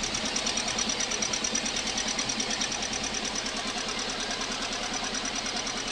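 Kia Sonet 1.2-litre four-cylinder petrol engine idling with the number 1 ignition coil connector unplugged, so that cylinder is not firing and the engine runs rough and shakes. It runs steadily with a fast, even ticking rhythm.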